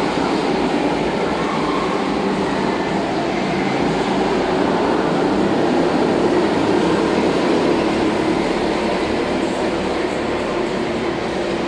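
Several go-karts running laps around an indoor track inside a large hall, a steady drone that swells a little as a kart passes close about six seconds in.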